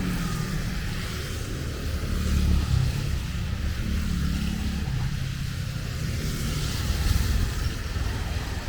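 Road traffic passing in the rain: motor vehicle engines running as they go by, swelling twice, over a steady hiss of rain and wet road.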